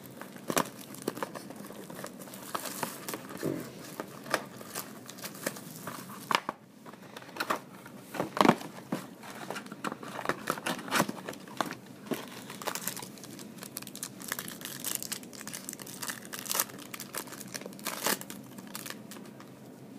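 Crinkling and tearing of trading-card packaging as a hobby box and its packs are opened, with irregular crackles all through and the loudest rip about eight seconds in.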